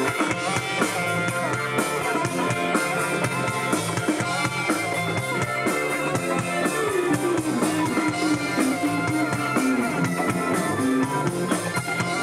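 Live rock band playing with electric guitars, bass and drum kit, with a steady drum beat under the guitars.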